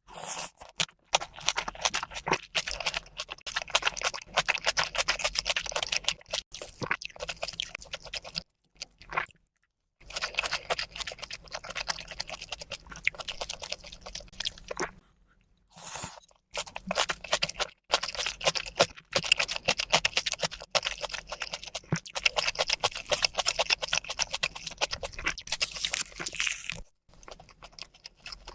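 A person chewing crunchy food close to the microphone: dense, crackling crunches, broken by a few brief pauses.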